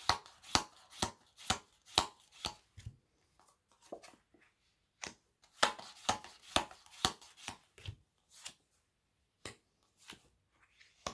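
Round cardboard oracle cards clicking and snapping against each other as they are flicked through and drawn from a hand-held deck: sharp clicks about twice a second for the first few seconds, then scattered clicks with another quick run midway.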